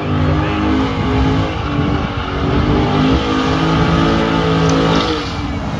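Dodge Challenger doing a burnout: engine held at high revs with the rear tyres spinning in smoke, the note easing down a little near the end.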